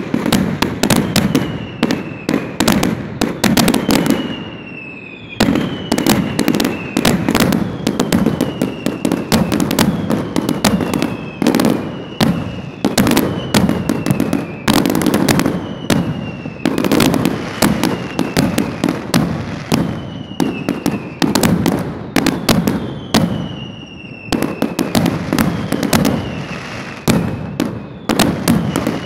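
Heavy aerial fireworks bursting close overhead in a continuous barrage of loud bangs and crackling, with short falling whistles every second or two. There is a brief lull about four to five seconds in.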